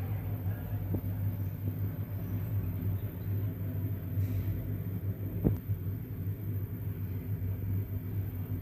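Steady low hum or rumble, with a faint tick about a second in and a sharp click about five and a half seconds in.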